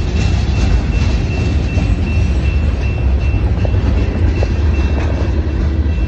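Freight train of loaded lumber flatcars rolling past with a heavy low rumble and occasional wheel clacks. A grade-crossing bell rings over it in a steady, evenly repeating pattern.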